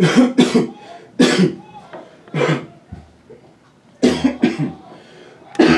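A person close to the microphone coughing: about seven loud, short coughs in short runs.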